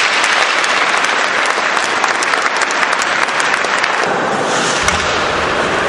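Large crowd applauding in an ice hockey arena: steady, dense clapping.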